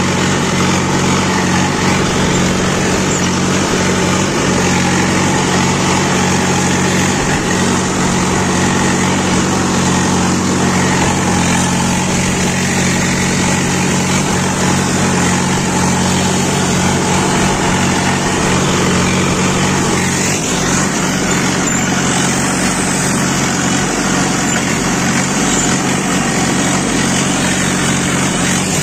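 Farm tractor's diesel engine running steadily under load, heard from the driver's seat, while it pulls a tine cultivator through hard, dry soil.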